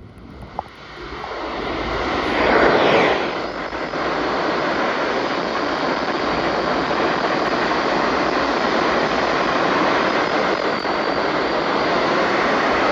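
A steady, loud hiss of static noise. It fades in over the first couple of seconds, swells briefly about two and a half seconds in, then holds level.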